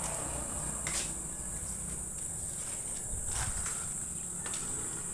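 Steady high-pitched drone of insects, with a low rumble underneath and a few faint clicks.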